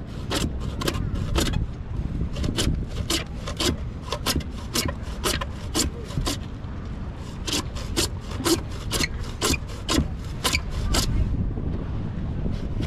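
Hand saw cutting through white PVC pipe, back-and-forth rasping strokes about two a second, with a short pause about halfway through. The sawing stops about a second before the end.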